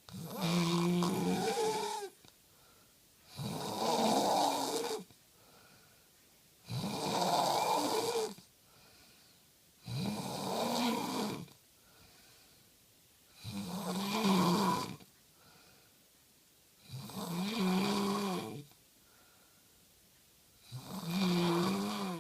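Snoring in a steady rhythm: seven long snores about three and a half seconds apart, each a rough breath carrying a buzzing, pitched tone, with quiet pauses between.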